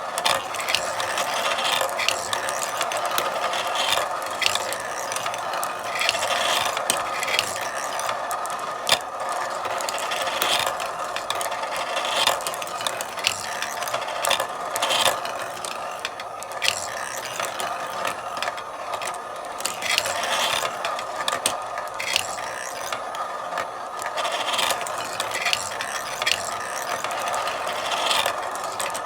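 Marbles rolling along a marble run's tracks with a continuous rolling sound and many quick, irregular clicks and clacks.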